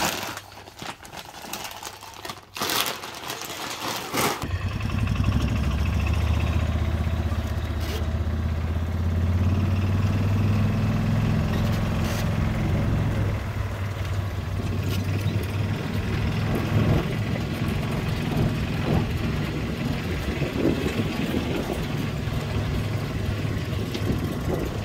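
Plastic feed bags rustling and crinkling as they are handled in a plastic bin. About four seconds in, a steady low rumble takes over and runs on.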